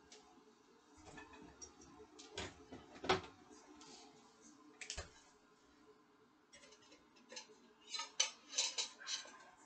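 Kitchen clatter of dishes and utensils being handled: a few light knocks and clicks, then a quick run of sharp clinks near the end.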